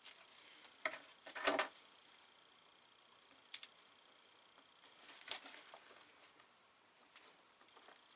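Stiff Dacron sail cloth crinkling and rustling under the hands during hand-sewing: a few short, sharp crinkles with quiet gaps between, the loudest about a second and a half in.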